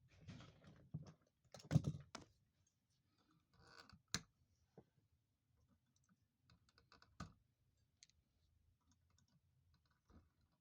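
Scattered clicks and light knocks of small objects being handled, with a louder clatter about two seconds in and a single sharp click about four seconds in.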